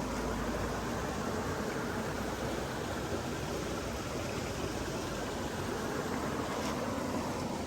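Flowing water from a stream: a steady, even rush with no breaks.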